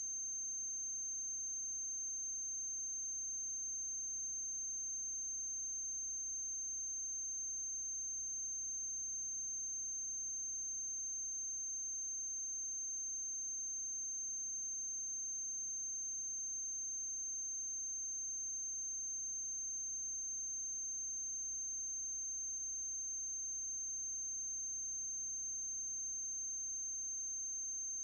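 Steady electrical noise on a silent film's soundtrack: a constant high-pitched whine over a low mains hum, unchanging throughout.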